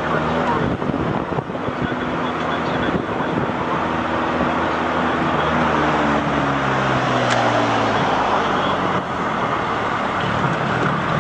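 A steady engine drone over a wash of outdoor noise. The engine's pitch slides slowly down about seven to eight seconds in.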